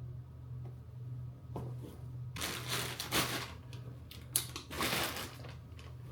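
Rustling and handling noises: two louder stretches of rustle with a sharp click between them, over a steady low hum.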